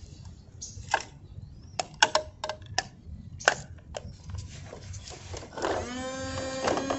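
Hard plastic toy garbage trucks clicking and knocking as they are handled, then near the end a toy's motor starts with a steady whirring hum that rises briefly in pitch as it spins up.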